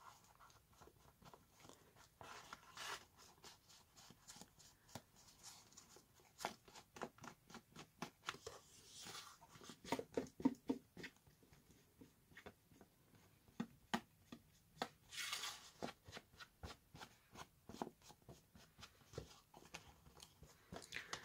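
Faint, irregular taps and scuffs of a small ink pad being dabbed and rubbed along the edges of paper and card to stain them. A couple of brief paper swishes come as the pages are handled.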